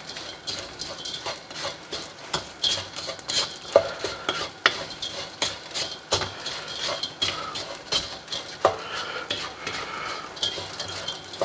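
Wooden spatula stirring and scraping a gritty mix of sugar, raisins and chopped almonds around a stone-coated non-stick wok, in quick irregular scrapes and taps.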